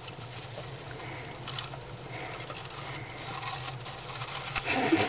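Pet hamsters scratching and rustling about in their cage: a soft, irregular scrabbling patter, with a louder burst of it near the end.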